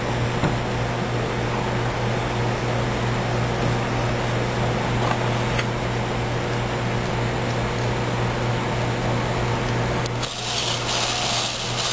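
A screw being driven into the centre tension hole of an Easyboot Bare's bungee with a cordless drill-driver: a steady rasping grind, with a louder, higher whirr starting near the end.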